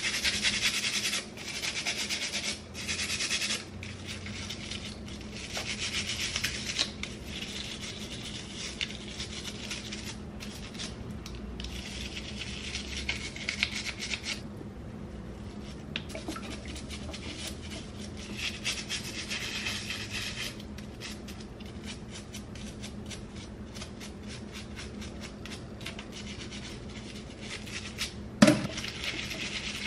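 A small stiff-bristled scrub brush scrubbing a plastic comb, in runs of quick scratchy strokes that stop and start again, with quieter stretches between. A single sharp knock near the end.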